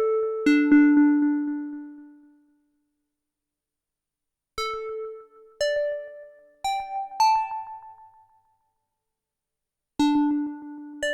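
Arturia MicroFreak synthesizer played through a Behringer VD-400 analog delay pedal: short, bell-like keyboard notes that ring out and fade. Two notes fall, then after a pause four notes climb. After another pause, another pair of notes begins near the end.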